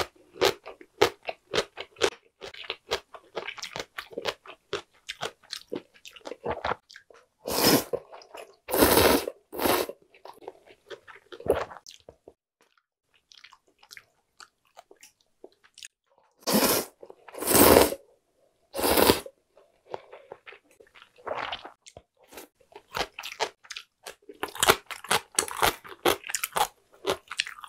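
Close-up eating sounds: rapid crunchy chewing of fried food, two runs of three long loud slurps of buckwheat soba noodles a third and two-thirds of the way through, then crunchy chewing again.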